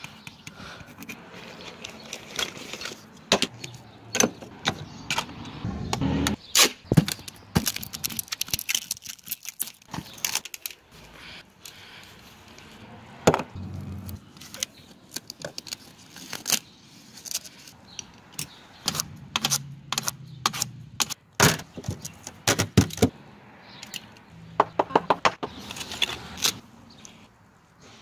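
Handling noises from hands working on a fridge door: irregular clicks, taps and knocks over scraping and rubbing, with a quick run of clicks near the end.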